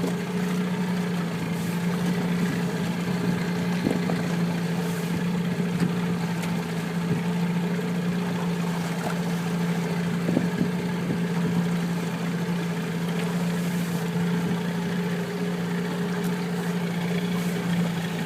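Small boat engine running steadily at an even, unchanging pitch, with light water and wind noise over it.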